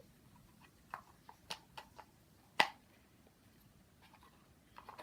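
Plastic shell halves of a LOL Surprise ball being handled and folded together: a few light clicks and taps, with one sharp, louder click about two and a half seconds in.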